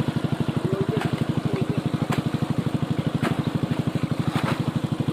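A small engine running steadily with an even, rapid chugging of about ten beats a second, with a few sharp clicks over it.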